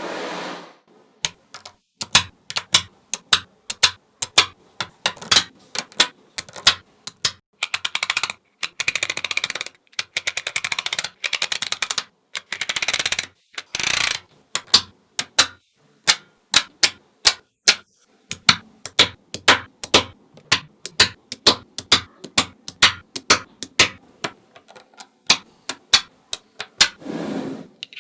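Small magnetic balls clicking sharply as they snap onto one another one at a time, with several bursts of rapid rattling clicks lasting a second or two as strings of balls slide and jump together.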